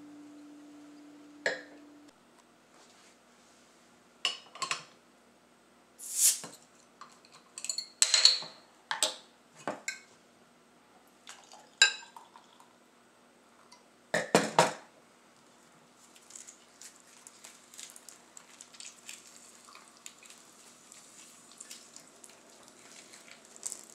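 A held bass guitar note dies away, then glass clinks and knocks as a beer bottle and a stemmed glass are handled and the beer is poured. After that comes a faint, steady crackle of the poured beer fizzing.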